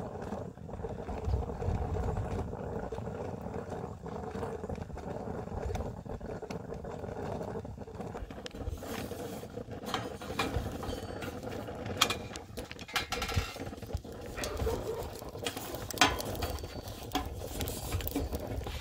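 Stovetop coffee percolator perking on a rocket stove's stick fire: a steady bubbling hum. From about halfway on, sharp clicks and knocks come as the stove's metal fuel door is opened and sticks are pushed in.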